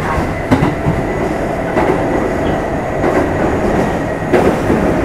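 Kintetsu 2610-series electric train running, heard from inside motor car Mo 2668: a steady rumble of wheels on rail with occasional clacks over rail joints.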